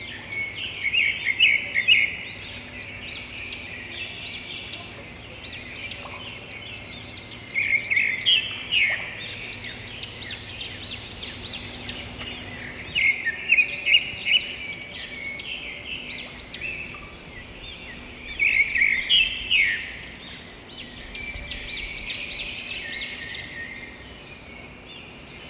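Songbirds singing outdoors: bouts of quick, high chirping notes that come about every five or six seconds, with scattered single chirps between them.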